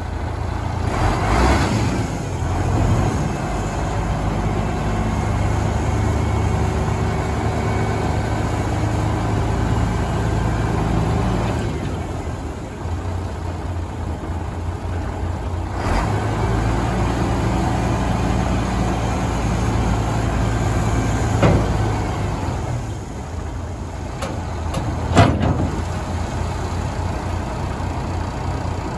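MAN 26.414 dump truck's diesel engine running steadily while the hydraulic tipper body is raised and lowered. The engine hum strengthens and dips twice. Short sharp sounds come about 21 and 25 seconds in, the second one the loudest.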